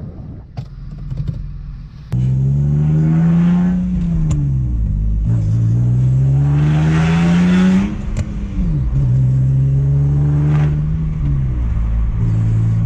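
BMW E46 330i's inline-six engine accelerating hard through the gears. The revs rise suddenly about two seconds in and climb, fall back at an upshift, climb again, fall at a second upshift near the middle, then hold fairly steady.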